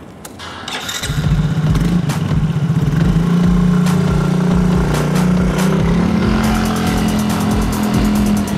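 Small motor scooter engine starting about a second in and running steadily as the scooter pulls away, its pitch stepping up a little partway through.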